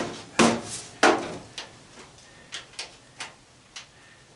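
Sharp clanks and knocks of sheet metal and tools being handled while an old fan is taken apart: three loud strikes in about the first second, then lighter ticks and taps.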